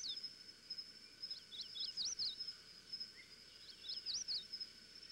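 Outdoor nature ambience: a steady high-pitched insect drone, with a bird singing two short phrases of quick chirps over it, about a second and a half in and again about four seconds in.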